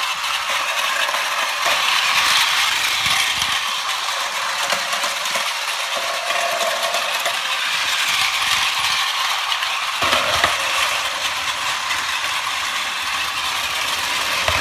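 Plarail battery-powered toy train running on plastic track: the geared motor whirs steadily while the plastic wheels clatter over the track joints, with a few duller knocks about ten seconds in.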